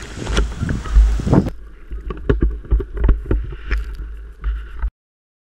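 Blizzard wind buffeting the microphone in heavy gusts, with irregular crunches and knocks over it; it cuts off to silence about five seconds in.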